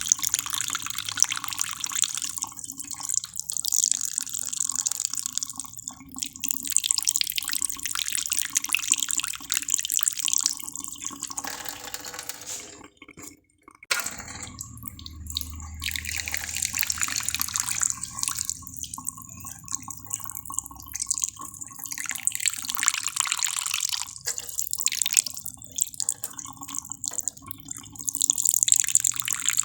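Running water splashing and dripping, with a brief break about halfway through.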